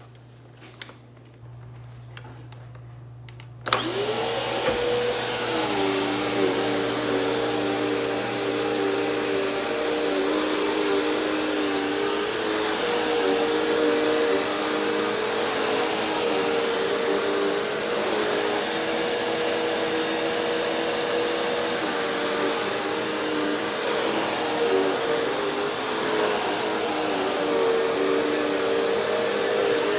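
A few faint clicks, then a vacuum cleaner switched on nearly four seconds in, its motor rising in pitch as it spins up. It then runs steadily and loudly, a whine over a rushing noise, the pitch wavering slightly.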